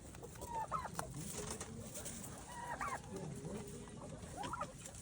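Farm poultry clucking: a few short calls, some rising in pitch, about a second in, near the middle and near the end.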